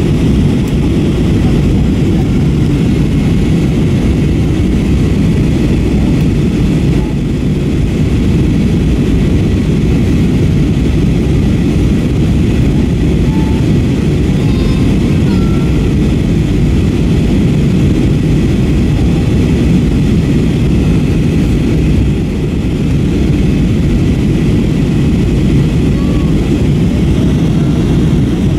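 Steady, loud cabin drone of an Airbus A321 airliner in flight: engine and airflow noise heard from inside the passenger cabin, with faint murmurs over it.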